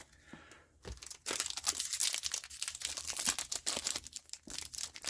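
Foil booster pack wrapper crinkling and being torn open, a dense run of crackles from about a second in, pausing briefly before the end.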